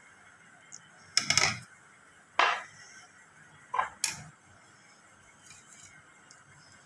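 Several short, sharp clinks and knocks of metal kitchenware being handled: a cluster a little over a second in, one more about a second later, then two close together near four seconds, over quiet room tone.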